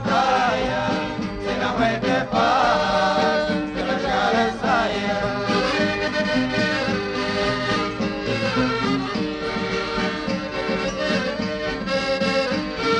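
Instrumental break of a Portuguese conjunto típico folk song, with an accordion carrying the melody over the band.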